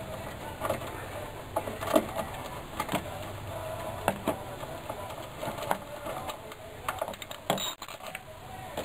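Wrench clicking irregularly while backing out the 10 mm bolt that holds a plastic coolant expansion tank, with small knocks of metal on the tank.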